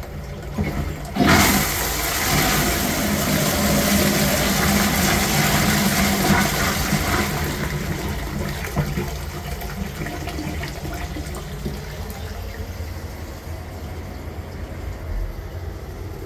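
1890s J. Taylor & Sons "Lucania" washdown toilet flushing from its high tank: water rushes down into the bowl, with a sudden louder surge about a second in, then the rush slowly eases off.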